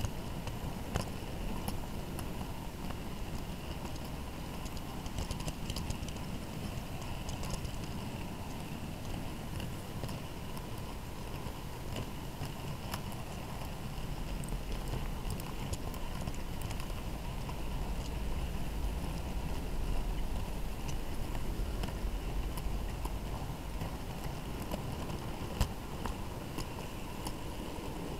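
Model railway wagons rolling along the track, heard from on board one wagon: a steady low rumble with irregular small clicks as the wheels pass over rail joints, and one sharper click near the end.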